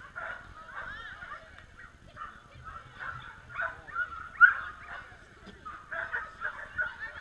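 Excited flyball dogs barking and yelping, many high-pitched calls overlapping, with one loud yelp about four and a half seconds in.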